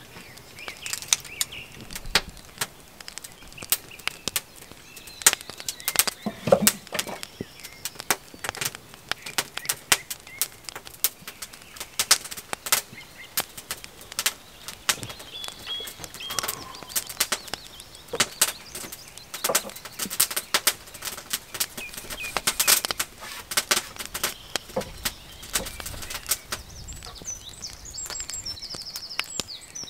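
Kindling fire of split wood and shavings burning in an iron fire bowl, crackling with frequent irregular sharp pops. A bird chirps now and then, most near the end.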